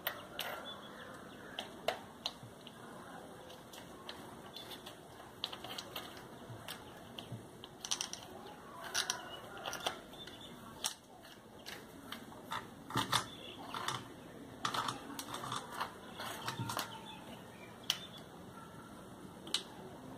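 Scattered irregular clicks, taps and light rattles of metal and plastic parts being handled as a flexible shaft attachment is screwed onto a mini rotary grinder. The motor is not running.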